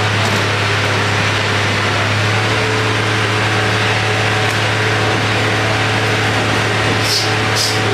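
Steady low machine hum with a few faint steady tones above it, and two short hisses near the end.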